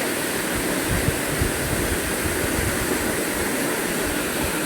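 Waterfall and stream water rushing steadily, a constant even noise, with a few brief low bumps about a second in.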